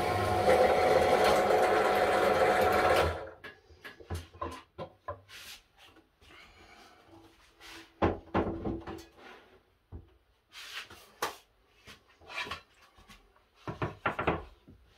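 Benchtop drill press running as its bit bores through stacked wooden boards, stopping abruptly about three seconds in. Then scattered knocks and clatter as the boards are lifted, handled and set down, with the loudest knocks about eight seconds in and near the end.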